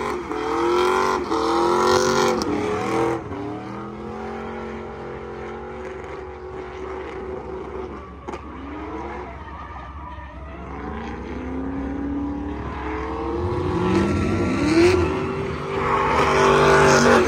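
A vehicle engine revving hard and easing off in waves, its pitch rising and falling, with a steep climb in revs near the end.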